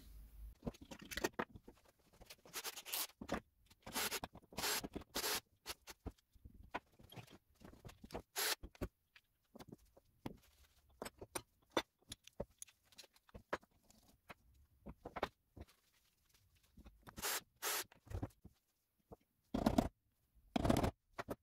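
Irregular clicks, taps and scrapes of tools and small parts being handled, with a few heavier knocks near the end.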